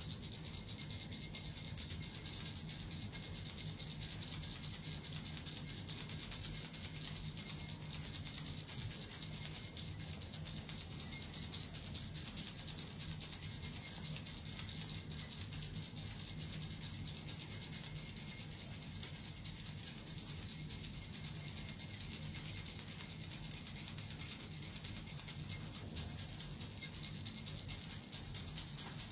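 Small Japanese suzu bells shaken continuously, giving a steady, unbroken jingle.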